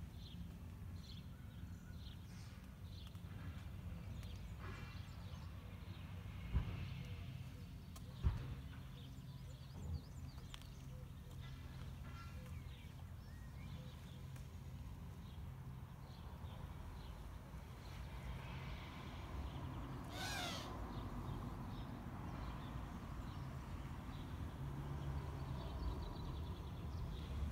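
Birds calling outdoors, short chirps and a longer warbling call about two-thirds of the way through, over a steady low rumble. Two sharp knocks come about six and eight seconds in.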